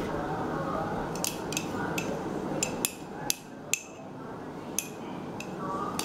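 Sharp clinks and taps of metal hand-mixer beaters knocking against the rim of a plastic mixing bowl, about nine scattered strikes, over a steady low noise that drops away about three seconds in.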